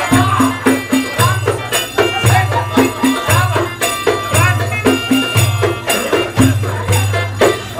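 Egyptian folk music for a tanoura dance: a low beat about once a second under a melody, with frame-drum strikes and tambourine jingles.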